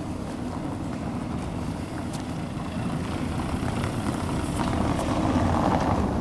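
A car driving up a cobblestone street and passing close by, its engine and tyres rumbling on the stones, growing louder in the last couple of seconds as it comes near.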